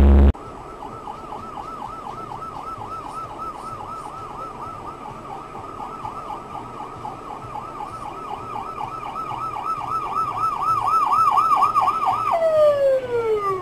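Emergency vehicle siren on a fast warble, its pitch swinging up and down about three times a second and growing louder. Near the end it breaks off into a long falling tone.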